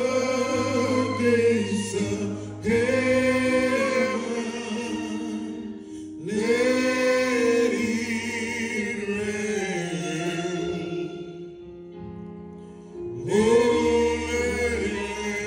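A man singing a slow gospel song into a microphone: long held notes with a wavering vibrato, in phrases broken by short pauses and a longer one about eleven seconds in, over steady held chords underneath.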